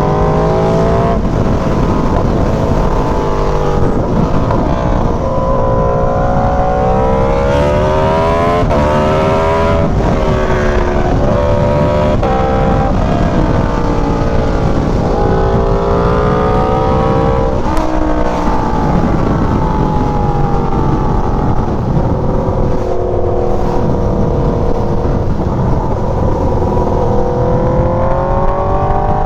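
Aprilia Tuono V4's V4 engine with an aftermarket exhaust pulling hard under throttle. Its note climbs in pitch and drops back several times as the revs rise and fall between gear changes, over steady wind rush on the rider's helmet mic.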